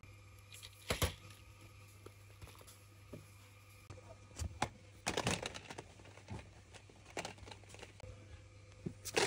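Small cardboard medicine boxes being handled and set into a plastic basket: scattered clacks and rustles, busiest about five seconds in. A faint steady low hum runs beneath.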